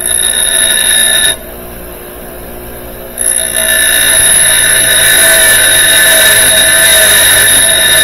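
Bench grinder grinding down the head of a steel bolt held against the wheel: a loud, steady, high-pitched grinding whine for about a second, then only the grinder's motor humming, then a second, longer pass starting about three seconds in.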